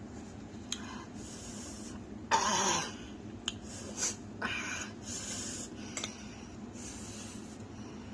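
A person breathing hard and hissing through the mouth every second or two against the burn of very spicy chili noodles, with one louder cough-like outburst a little over two seconds in and a few small clicks.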